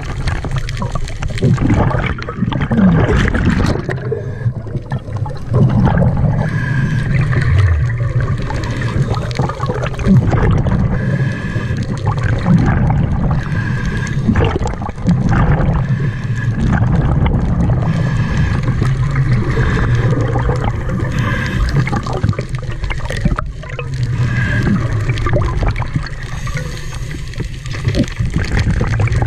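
A scuba diver's regulator breathing, heard underwater: exhaled bubbles gurgling every few seconds over a steady low rumble.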